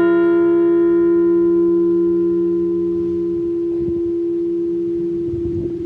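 Liberty Bell replica ringing on after a single strike: a strong, steady low hum holds while the higher overtones die away over a few seconds.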